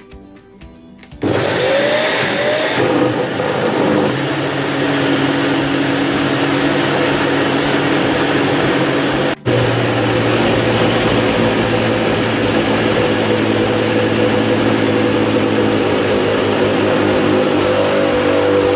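Countertop blender running at full speed, grinding washed brown beans and a little water into a smooth batter for akara. It starts about a second in, its motor note settles after a few seconds, and it cuts out for an instant about halfway through.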